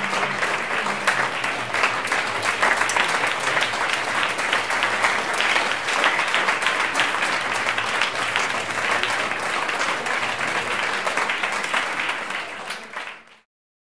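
Audience applauding steadily, a dense patter of many hands clapping, fading out to silence just before the end.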